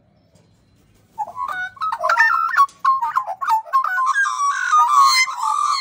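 Two Australian magpies carolling together, starting about a second in with loud, fluting, warbling notes that glide up and down. From about four seconds in, a harsher, noisier note joins the song.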